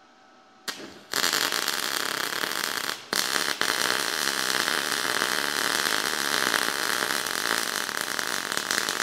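MIG welding arc running .023 wire on 1/8 inch steel at about 20 volts and 450 inches per minute wire feed, settings that weld a little cold on this plate. The arc strikes with a short stutter about a second in, then runs steadily, breaking off briefly about three seconds in before restarting.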